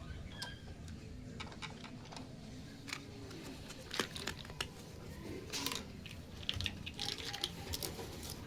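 Light, irregular clicks and taps of small plastic toy pieces being handled, with a sharper click about halfway through and small flurries of clicking near the end.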